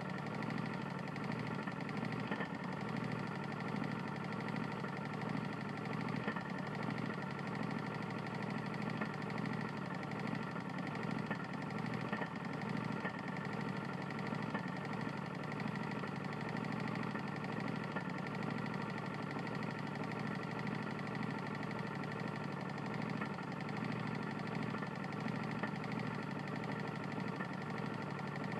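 Tecumseh lawn mower engine running steadily with a knock from a serious connecting rod fault.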